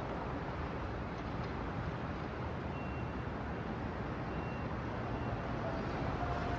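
Steady low rumble of road traffic, with heavy trucks passing.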